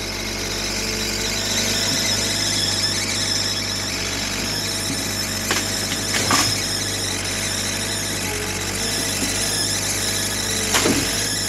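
JCB 3DX Plus backhoe loader working at mud loading: its diesel engine running steadily with a high squeal over it. Sharp knocks come about five and a half and six seconds in, and again near the end.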